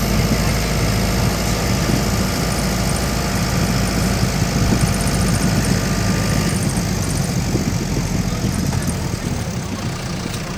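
A vehicle's engine running and the road noise of driving, heard from inside the cabin: a steady low rumble whose deepest part eases off a little after about six seconds.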